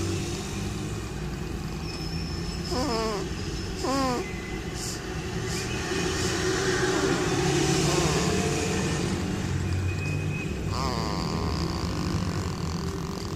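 A baby snoring: a low, rough rumble that runs on without a break. A few short wavering, higher-pitched sounds come through about three and four seconds in, and again near the end.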